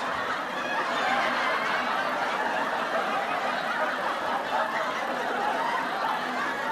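Steady laughter from many people, a canned laugh track following a punchline.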